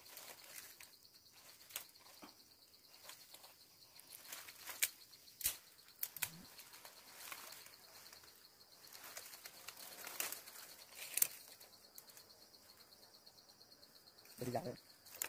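Faint, scattered sharp snaps and clicks of twigs being cut with a knife and broken by hand, with leaves rustling, over a low steady hiss.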